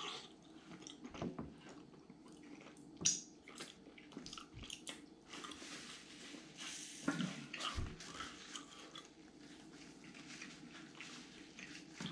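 Close-miked eating of a steak pie by hand: chewing and crackly mouth clicks as pastry and meat are bitten and broken apart. There is a sharper crack about three seconds in and a longer rustle around the middle.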